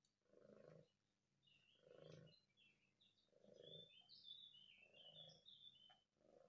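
Domestic cat purring softly, the purr coming in pulses about every second and a half with each breath. Faint high-pitched chirps sound through the middle.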